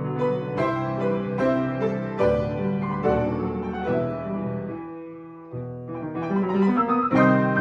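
Piano playing a lyrical passage, single notes and chords ringing over one another. About five seconds in the sound fades into a brief pause, then the playing picks up again.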